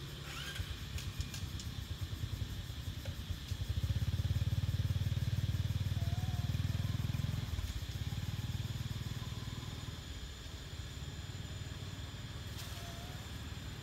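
A motor vehicle driving past: a low engine hum that swells about three and a half seconds in, holds for about four seconds, then fades away by about ten seconds.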